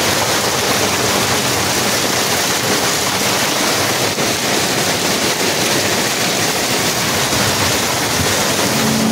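Heavy rain pouring onto a sailboat's deck and cockpit canvas, heard from inside the cabin as a loud, steady hiss.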